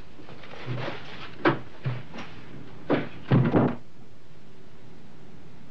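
A few knocks and thumps of someone leaving down the stairs, ending in a cluster of bangs about three and a half seconds in, like a door being opened and shut.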